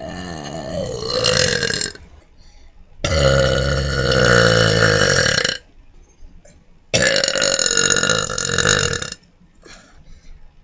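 A person burping: three long, drawn-out belches, each lasting about two seconds, with short pauses between them.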